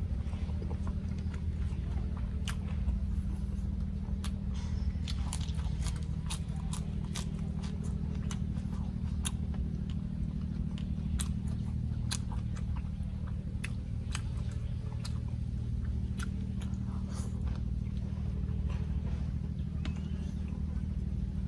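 A person chewing mouthfuls of boiled tiger prawn, with irregular mouth clicks throughout. A steady low hum runs underneath.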